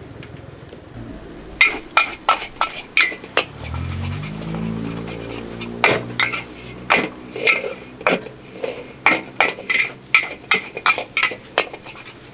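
Metal spatula clanging against a wok while noodles are stir-fried, in sharp ringing strikes: a run of about six in the first half, then a steadier run of roughly two a second. A low hum rises in pitch around four seconds in.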